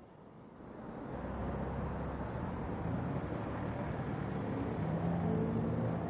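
Road traffic: cars driving along a city street in a steady wash of engine and tyre noise that swells up about a second in and then holds.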